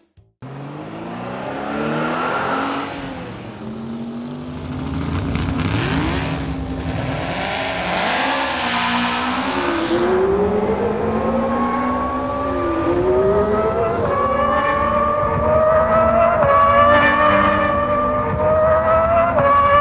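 Racing car engine sound effects: several engines revving hard, their pitch climbing steadily and dropping back sharply at each gear change, about every three seconds in the second half.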